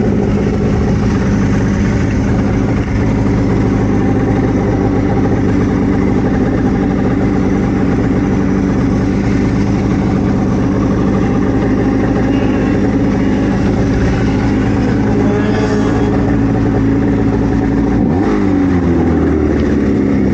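Snowmobile engine running steadily under load while pushing through deep snow, revving up with a rising pitch near the end.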